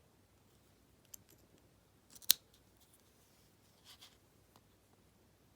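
Small padlocks being handled: a faint click about a second in, one sharp click a little over two seconds in, and a soft rustle near four seconds.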